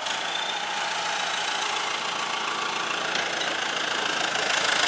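An engine running steadily at idle, over an even wash of outdoor noise.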